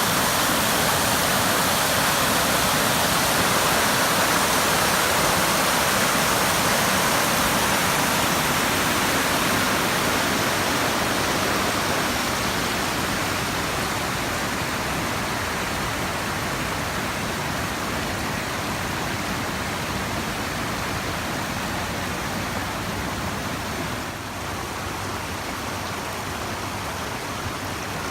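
Steady rushing of a small creek waterfall, easing off somewhat about halfway through.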